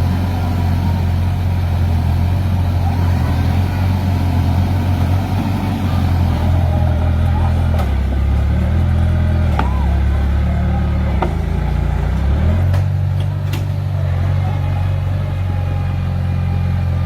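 Heavy diesel earthmoving machinery running steadily, its engine pitch dipping and then rising again partway through as the load changes, with a few sharp clicks.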